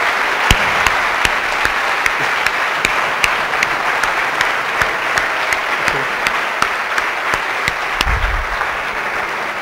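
Audience applauding, a dense patter of many hands with single sharp claps standing out, easing off slightly toward the end; a brief low thump near the end.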